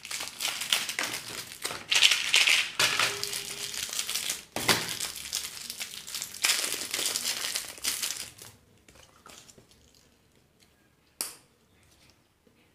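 Candy and surprise-egg wrappers crinkling as they are handled and unwrapped for about eight seconds, then near quiet apart from a single sharp click.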